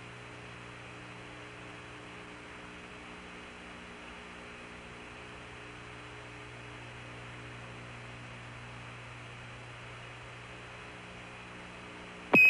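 Steady hum and hiss of the Apollo air-to-ground radio link. Right at the end a short, loud, high beep sounds: the Quindar tone that keys Mission Control's voice transmission to the astronauts.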